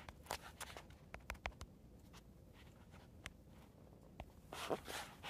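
Quiet room tone with scattered faint light clicks and taps, and a soft rustle near the end.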